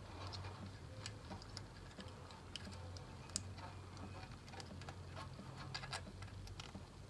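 Faint, irregular metal clicks and taps of hand tools working on the valve adjusters of a VW Beetle engine during valve clearance setting.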